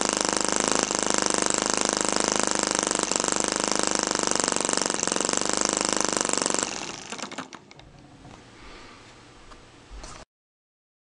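Miniature side-shaft hit-and-miss gasoline engine with electronic ignition running with a rapid, steady clatter. About two-thirds of the way through it cuts out suddenly and coasts down with a few last clicks, then only a faint hiss remains.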